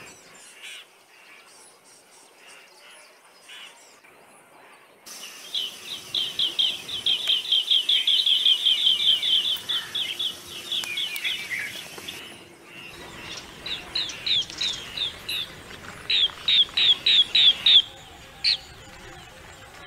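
Green bee-eaters calling: fast runs of short, high chirping notes, several a second, in two long bouts with a short break between them.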